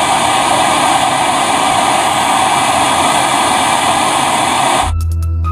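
Portable MAP-gas torch burning with a steady, even hissing rush as its flame heats a copper pipe for brazing. About five seconds in, the torch sound cuts off sharply and music with a deep, steady bass starts.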